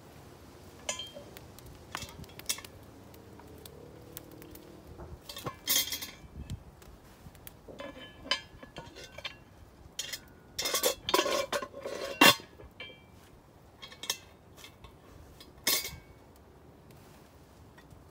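Cast iron Dutch oven and its lid clanking: a series of sharp metal-on-metal clinks and knocks as the lid is lifted off with a lid lifter and set back on the pot, with the loudest cluster a little past halfway.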